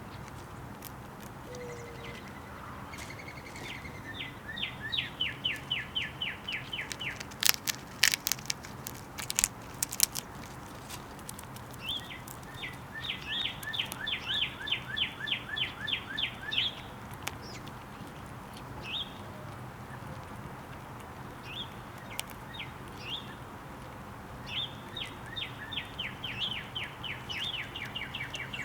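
A songbird sings three phrases of quick, evenly repeated down-slurred whistled notes, about six a second. Between the first two phrases come a few sharp knocks.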